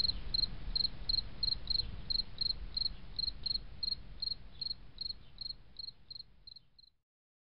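Cricket chirping steadily, about three short chirps a second, over a low rumble. The chirps fade out and stop about seven seconds in.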